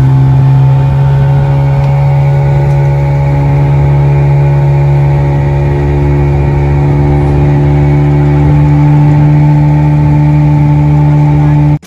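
Engine of a small open fishing boat running steadily at speed, a loud constant drone over the rush of water from the wake. It cuts off suddenly near the end.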